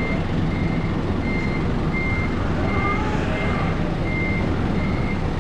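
Forklift's back-up alarm beeping, one high tone repeating a little more than once a second, over the forklift's engine running.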